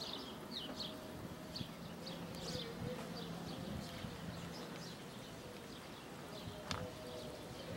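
Faint outdoor ambience: scattered short, high chirps throughout, a low steady hum through the first half, and a single sharp click near the end.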